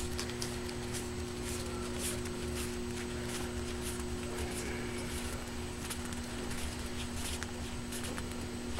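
Paper trading cards being handled and fanned out in the hand, with faint scattered flicks and rustles over a steady low electrical hum.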